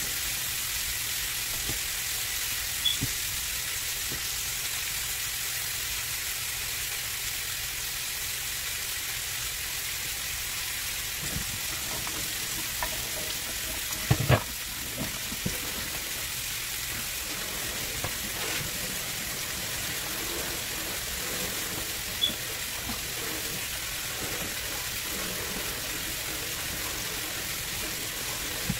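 Bone-in beef steak searing in a nonstick skillet: a steady sizzle, with a few sharp pops, the loudest a quick double pop about halfway through.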